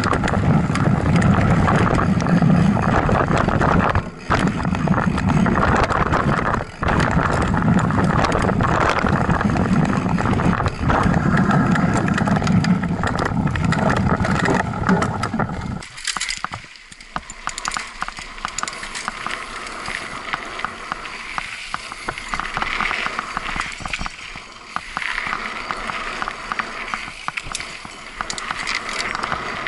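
Mountain bike riding noise: loud rumbling and buffeting on the bike-mounted camera for about the first half, dropping suddenly about halfway through to a lighter crackle of tyres rolling over a wet gravel trail.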